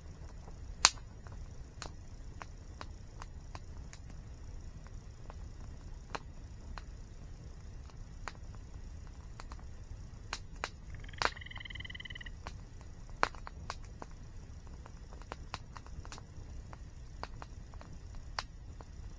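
Campfire crackling, with sharp irregular pops, a loud one about a second in, over the steady low rumble of a waterfall. A short, even-pitched call, likely a bird's, sounds once for about a second midway through.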